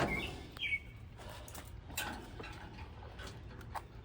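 A bird chirping, two short falling chirps near the start, then a couple of sharp clicks about halfway and near the end, over a steady low background hum.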